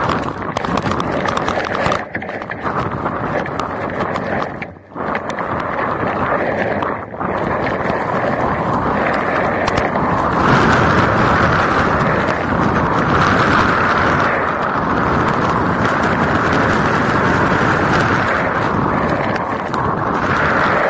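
Wind and rain rushing over a vehicle-mounted camera's microphone while driving through a severe thunderstorm: a loud, steady noise that drops out briefly three times in the first half and grows stronger about halfway through.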